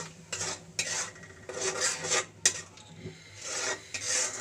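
A spatula scraping and stirring a thick spice paste in a metal karahi as the masala is fried down in oil. The scraping strokes come irregularly, with one sharp knock of the spatula on the pan about halfway through.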